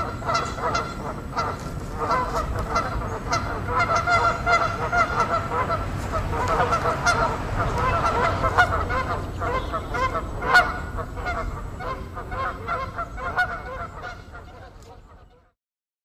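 A flock of waterbirds calling, short pitched calls repeated over and over and overlapping into a noisy chorus, fading away near the end.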